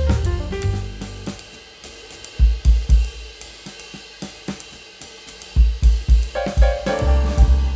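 Background music: an instrumental track with drum kit and cymbals, thinning to a drum break in the middle before the melody and bass come back in.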